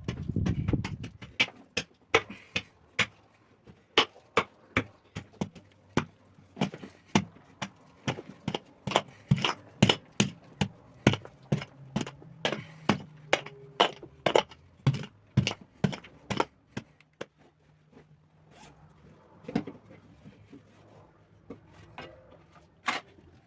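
A hand tool striking wood over and over, about two sharp knocks a second, thinning out to a few scattered knocks after about 17 seconds.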